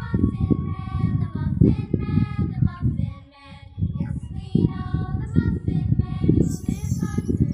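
A child's voice singing a simple melody in held notes, with a short break about three seconds in. Busy low knocking runs underneath.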